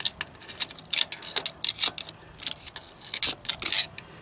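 A long metal tool clicking and scraping against the gears and the broken-nut fragments inside an open Arctic Cat 250 ATV transmission case, in about a dozen irregular sharp ticks and short scrapes. The fragments are the remains of the nut that came off inside the locked-up transmission.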